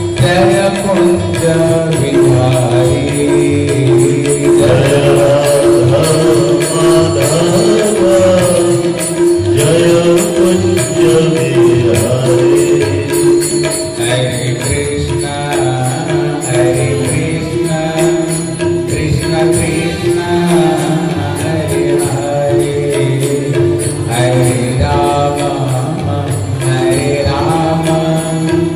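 Devotional kirtan: voices chanting a melody over a steady held drone, with jingling percussion keeping time.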